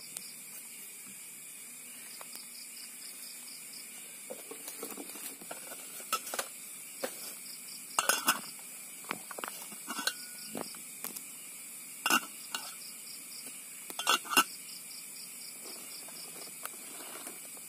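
Metal camping cook pot and its lid clinking as the lid is handled and set on, several sharp clinks spread through, the loudest about eight, twelve and fourteen seconds in. A steady pulsing chorus of night insects goes on underneath.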